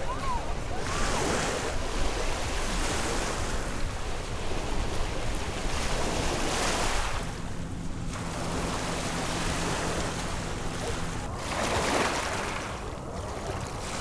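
Small waves washing in over a pebble beach, surging every few seconds, with wind buffeting the microphone.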